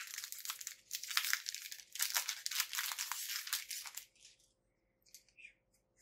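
Foil wrapper of a Pokémon Sun & Moon booster pack being torn open and crinkled by hand: a dense crackling rustle for about four seconds, then only a few faint light ticks as the cards come out.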